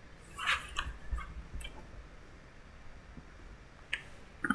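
Quiet room with a few faint, separate clicks from a computer being worked, and a brief soft hiss about half a second in.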